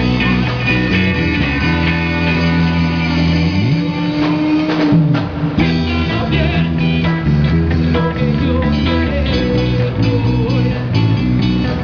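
Live rock band playing an instrumental passage on electric guitar and bass guitar through amplifiers. Near the middle the low end drops out for about two seconds while a note slides up, holds and slides back down, before the full band comes back in.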